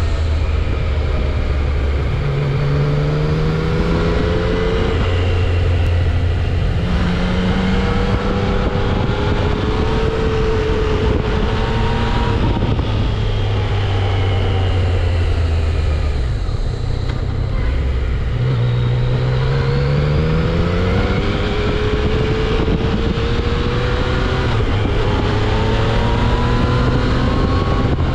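Yamaha XSR900's inline-three engine through its stock exhaust, pulling through the gears on a ride. The pitch climbs, drops at each shift or roll-off, and climbs again several times, under a steady rush of wind noise.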